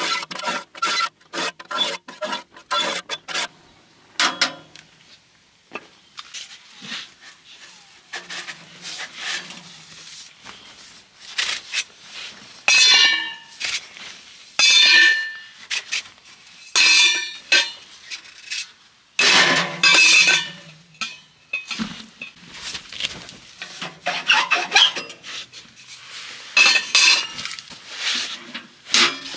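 Metal cookware being handled: a quick run of short clinks at first, then repeated scraping strokes of a utensil against a pot.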